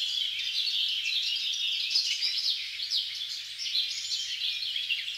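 A dense chorus of many small birds chirping and twittering without a break, a morning birdsong ambience.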